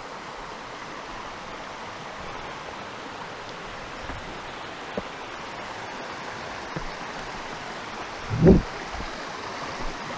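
Steady rush of falling rain and running creek water, with a single low thump about eight and a half seconds in.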